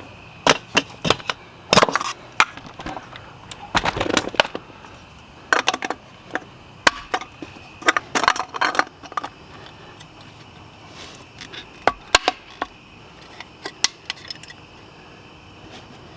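Wheel center caps being handled and fitted: irregular sharp clicks and knocks, bunched together in the first half and thinning out later, as a cap snaps into place.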